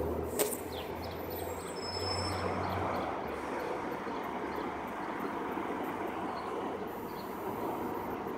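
Orion VII city transit bus running at the curb across the street, a steady drone of bus engine and passing traffic. A single sharp click about half a second in.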